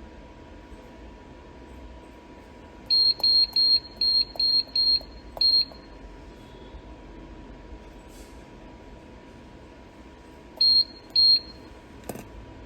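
Hitech PWS6600T-P touch-screen panel's buzzer giving short high beeps as the repaired screen is touched in a test: seven in quick succession, then two more near the end. A single click follows just before the end, over a faint steady hum.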